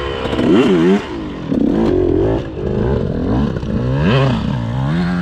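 Motocross bike engine revving as it rides, the pitch climbing and dropping several times as the throttle is opened and shut.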